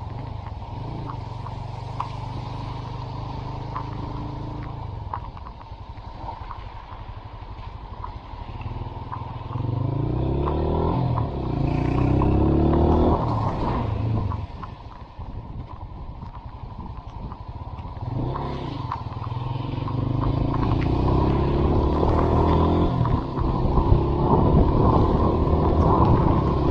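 Honda CB190R single-cylinder motorcycle engine running under way, pulling up through the gears twice: the note climbs in steps, drops back to a low steady run, then climbs again.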